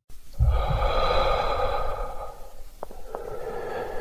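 A person taking a slow, deep breath, used as a sound effect: a long, breathy exhale that is strongest for about two seconds, then carries on more softly, with two faint clicks about three seconds in.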